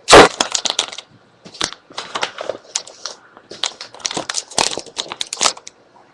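Handling noise close to the microphone as a screen is tilted back up: a loud bump about a quarter second in, then an uneven string of clicks, knocks and scrapes.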